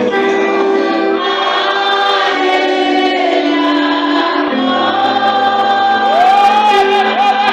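Gospel worship song: voices singing a wavering melody over steady held chords.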